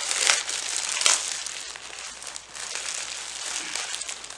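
Packaging crinkling and rustling as flat-pack furniture parts are unwrapped and handled, in irregular strokes, loudest about a second in.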